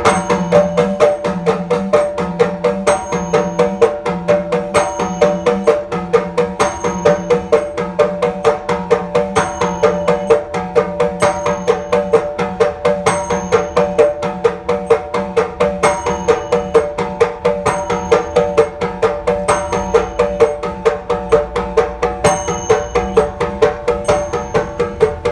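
Mizhavu copper pot drums struck with the hands in a fast, even rhythm, with a pitched idakka hourglass drum and small kuzhitalam cymbals ringing at regular intervals: the traditional percussion accompaniment of Nangyar Koothu.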